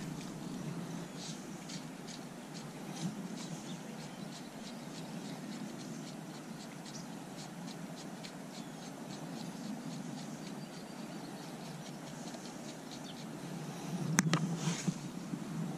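Steady low outdoor rush beside a creek, with many faint light ticks and chirps. About fourteen seconds in, a sharp click comes, then a short swish as fly line is cast.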